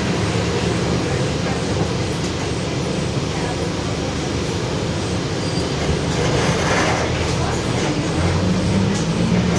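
Mercedes-Benz OF-1721 city bus running, its differential droning very loud under the engine and road noise, growing louder near the end.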